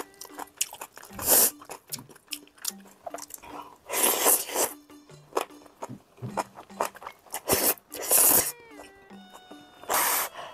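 Instant ramen noodles slurped up in four loud, hissy sucks, with wet chewing clicks between them.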